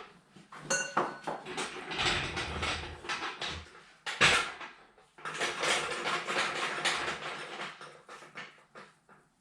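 Metal hand tools clinking and clattering in two busy spells, with a brief metallic ring near the start.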